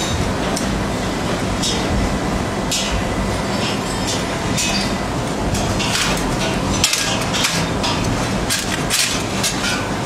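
Laser wire-stripping machine and its fixture in use: a steady low machine hum with irregular sharp clicks and hissy ticks, several a second and thicker in the second half, as cables are worked in the metal comb rack.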